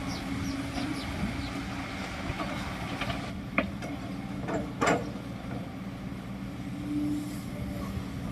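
Heavy diesel engine of a bulldozer running steadily, with a few sharp metallic clanks about halfway through.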